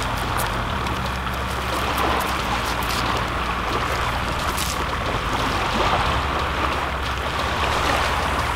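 Steady wash of wind and small waves at the water's edge, with a low hum underneath and a few faint clicks.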